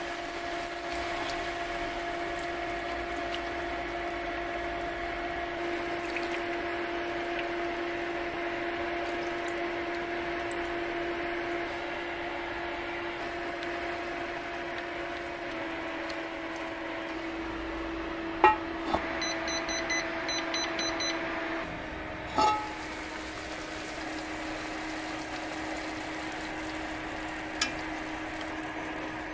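Steady two-note electrical hum from the Vermicular pot's induction heater base, with a faint hiss of liquid in the pot. A couple of sharp clicks come about two-thirds of the way through, then a short beep.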